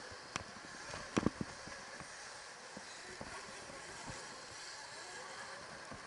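Riding noise from an electric dirt bike on a packed-dirt track: a steady rush of wind and tyre noise, with a few sharp knocks and rattles from the bike over the bumps, loudest just over a second in.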